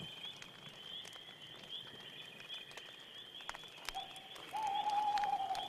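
Night forest ambience: insects trilling steadily and high, a few sharp clicks, and a long whistled animal call that starts about four and a half seconds in and is the loudest sound.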